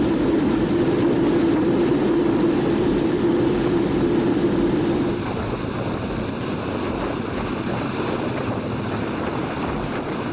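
Homemade model turbojet engine running with its afterburner lit: a loud steady rushing blast with a thin high turbine whine. About five seconds in it changes to a slightly quieter take of the engine running, and the whine edges a little higher near the end.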